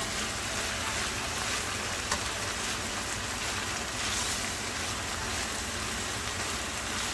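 Salmon steaks sizzling steadily in a frying pan as they are turned with metal tongs.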